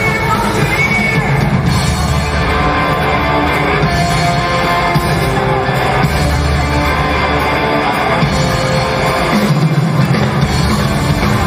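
Live rock band playing loud, with electric guitar through Marshall amps, upright double bass and a drum kit.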